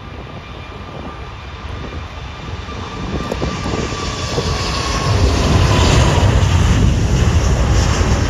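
British Airways Airbus A380's four Rolls-Royce Trent 900 engines at takeoff power as the jet rolls down the runway and lifts off: a deep jet roar growing steadily louder and peaking about two-thirds of the way through. A thin steady whine fades out about halfway.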